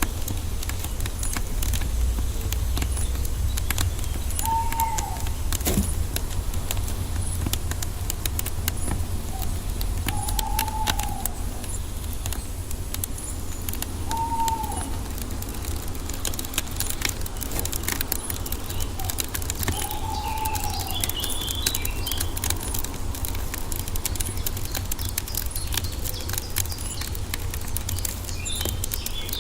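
Wood fire crackling with frequent sharp pops over a steady low rumble. A bird gives four short calls several seconds apart, and small birds chirp briefly later on.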